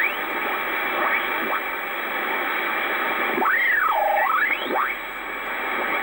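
Yaesu FRG-8800 shortwave receiver tuning across the 80-metre band: a steady hiss of band noise from its speaker, crossed by short rising and falling whistles as signals sweep past. About halfway through, one heterodyne whistle falls, levels off low and rises again as the dial passes a carrier.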